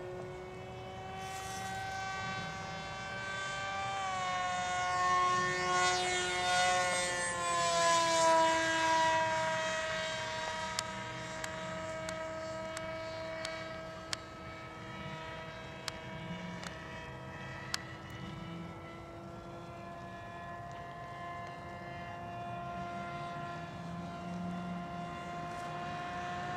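Motor and propeller of a scratch-built radio-controlled model airplane in flight: a steady whine that is loudest and drops in pitch in two steps, about four and eight seconds in, then holds steady. A few faint clicks.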